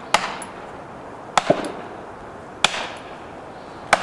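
Heavy hand-swung blows struck one after another, about one every second and a quarter. Each is a sharp crack with a short echo; one comes doubled, with a quick second hit.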